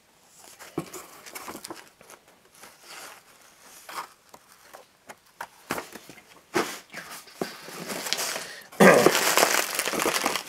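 Packing being handled in a cardboard box: scattered rustles of glossy paper and cardboard, then loud crinkling of bubble wrap for the last couple of seconds.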